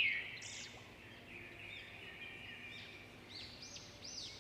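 Small birds chirping and calling, a string of short rising-and-falling chirps, faint.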